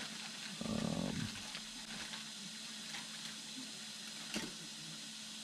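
Faint clicks and handling noise of plastic propellers being fitted onto a drone's motors, over a steady hiss and faint hum. A short low buzz about a second in is the loudest sound.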